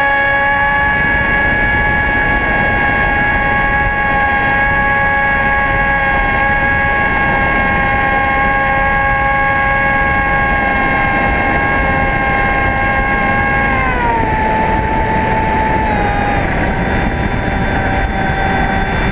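Electric motor and propeller of a Hobbyking Bixler RC plane in flight, heard from a camera on its nose: a steady whine with wind rushing over the camera. About fourteen seconds in the pitch drops and then holds lower as the motor slows.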